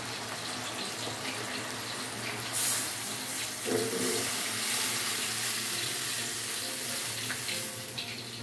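Coconut milk poured from a jug into a hot pot of winged beans and tempeh: a steady splashing pour that starts about two and a half seconds in and runs for several seconds.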